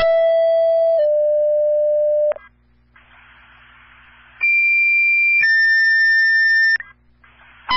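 Two sequential two-tone paging alerts on a fire/EMS dispatch radio channel, sent to set off the responders' pagers. Each page is a steady tone for about a second stepping down to a second steady tone for about a second and a half; the second pair is higher in pitch. Radio hiss fills the gap between them, and a short beep sounds at the very end.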